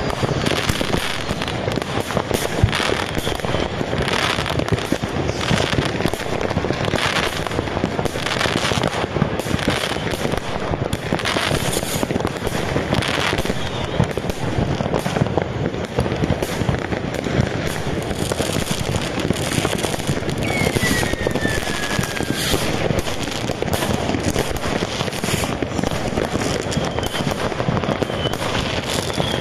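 Many fireworks going off at once: a steady, dense rattle of firecracker bangs and crackling. About twenty seconds in, one firework gives a falling whistle.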